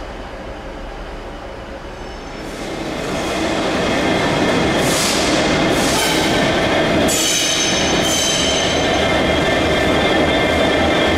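A train running past, growing louder over a second or two and then holding steady, with high-pitched metallic squeal from the wheels on the rails.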